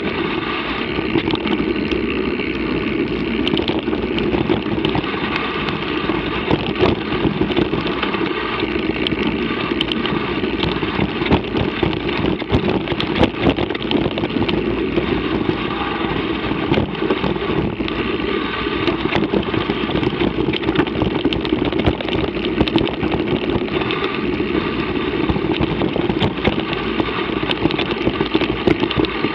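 Mountain bike rolling over a rough dirt-and-gravel trail: a steady rush of wind and tyre rumble, broken by frequent clattering rattles and knocks from the bumpy ground.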